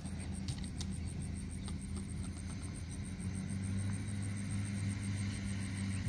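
Steady low hum of a running motor, a little stronger from about halfway through. Above it an insect chirps in rapid, even pulses.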